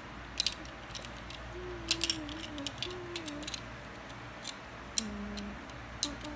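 Small Lego brick safe being handled and its buttons pressed: sharp plastic clicks and rattles, a pair just after the start, a quick cluster about two seconds in, and single clicks later.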